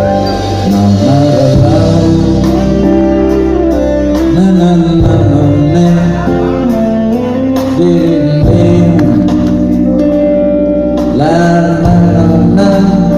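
Live band music at a sound check, with a male voice singing a melody over guitar and steady backing.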